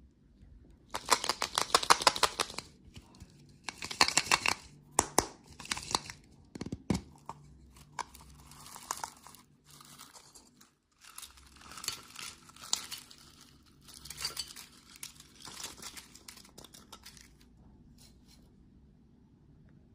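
Candy packaging being torn open and crinkled by hand, in several irregular bursts of crackling rustle with short pauses between them, dying away for the last couple of seconds.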